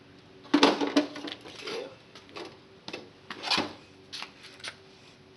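A series of irregular metallic clanks and knocks as a small blower motor pulled from a space heater is handled and set down on the heater's sheet-metal casing; the first clank, about half a second in, rings briefly.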